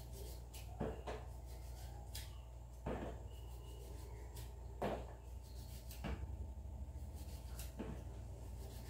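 Kitchen knife cutting a vegetable held in the hand: irregular soft cuts and small knocks, roughly one a second, over a steady low hum.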